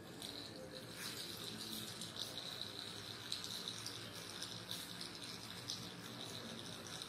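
The robot's small DC gear motors whirring with a thin high whine that swells and dips unevenly as the motors switch on and off to steer toward the light.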